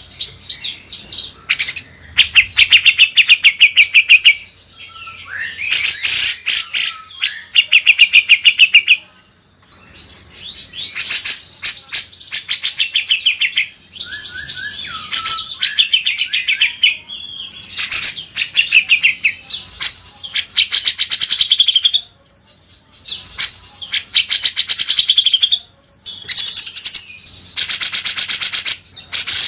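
Loud cagebird song of a cucak jenggot (grey-cheeked bulbul) and a kinoi. Rapid chattering trills of several seconds each alternate with shorter whistled phrases, the kind of fast 'besetan' runs used for song-tutoring.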